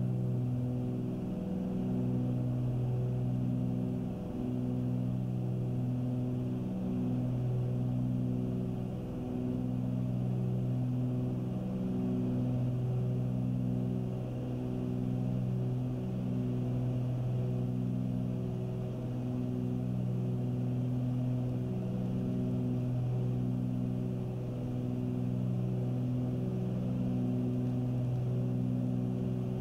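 Cessna 310Q's two piston engines and propellers running steadily at climb power, heard inside the cockpit. Their drone swells and fades in a slow, regular throb, the beat of two propellers turning at slightly different speeds.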